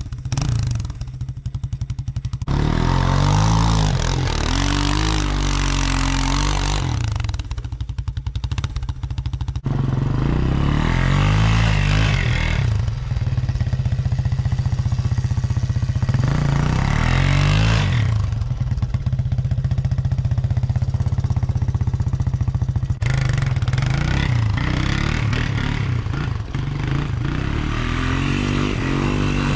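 Honda ATC 200X three-wheeler's single-cylinder four-stroke engine revving up and down as it is ridden under load through deep snow. The sound breaks off abruptly and changes a few times.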